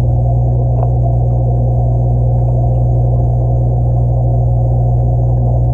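Steady low motor hum of running aquarium equipment, picked up through the water by a submerged camera. A single faint click about a second in.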